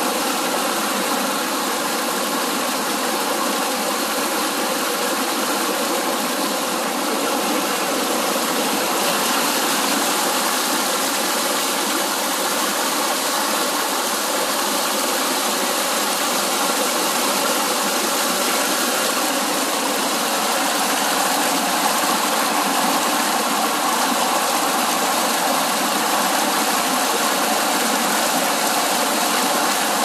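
Mountain stream water rushing steadily over rocks in a small cascade, heard close up as an even, loud hiss.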